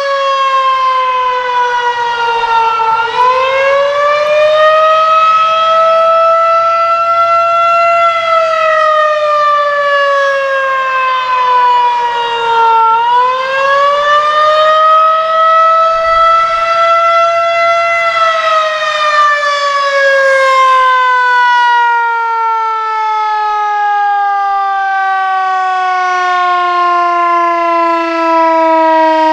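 Federal Signal 2001-130 electromechanical tornado siren sounding the attack signal: its single tone rises and falls in slow waves, about ten seconds per cycle. Past the middle its pitch falls steadily and keeps falling.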